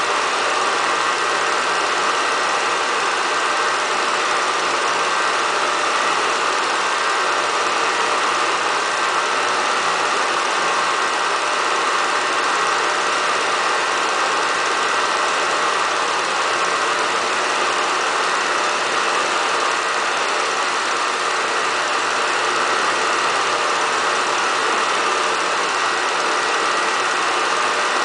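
Steady mechanical whirr that never changes in level, with a faint high whine running through it and no beat or rhythm.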